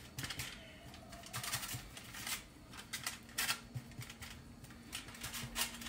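An oiled hand patting the top of a loaf of bread dough, a run of soft, irregular slaps and taps.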